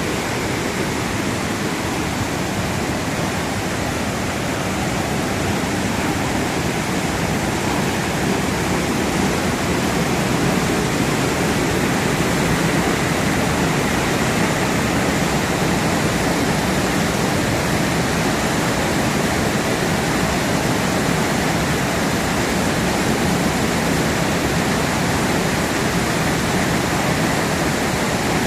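Waterfall swollen with rainwater, a steady, loud rush of falling water.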